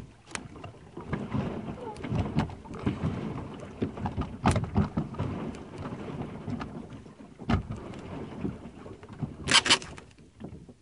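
A plastic kayak being turned around on the water: paddle strokes and water sloshing, with a few sharp knocks, two of them close together near the end.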